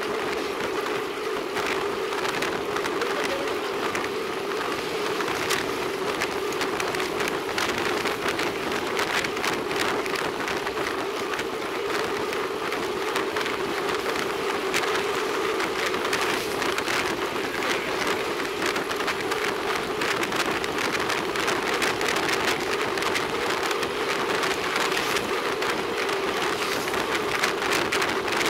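Steady road and wind noise from a road bicycle riding on a concrete road, picked up by a saddle-mounted bike camera: a constant hum with many fine crackles and rattles from tyre and road vibration.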